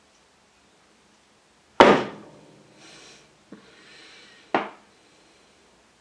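Lop-eared rabbit thumping a hind foot on a wooden floor, a rabbit's warning signal: a loud thump about two seconds in, a softer one a second and a half later, and another loud one about a second after that.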